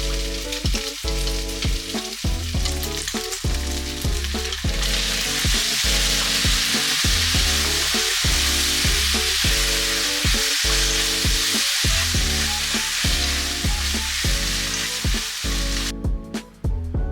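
Food sizzling in a frying pan, a steady hiss that grows louder about five seconds in and cuts off suddenly near the end. Background music with a regular beat plays throughout.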